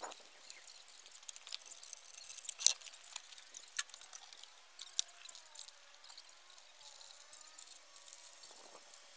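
Scattered metal clicks and clinks of camera crane parts being handled and fitted together, the sharpest a little under three seconds in.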